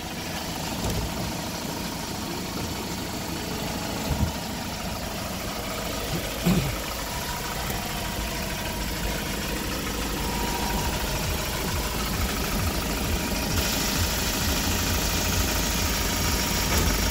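2012 Kia Bongo III box truck's diesel engine idling steadily at about 800 rpm, with a couple of short knocks. A steady hiss like a fan or blower joins near the end.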